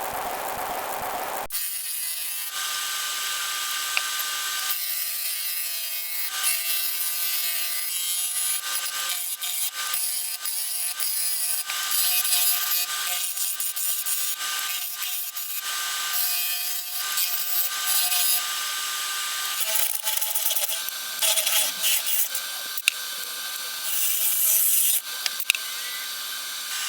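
Wood lathe turning a wooden blank, with a turning tool cutting into the spinning wood in repeated passes. There is hissing and scraping that starts and stops over a steady motor whine.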